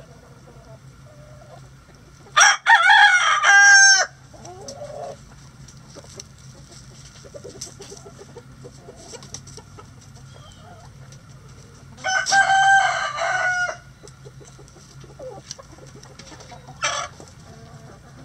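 Rooster crowing twice, each crow about a second and a half long and some ten seconds apart, with a short squawk near the end. Hens cluck softly in between.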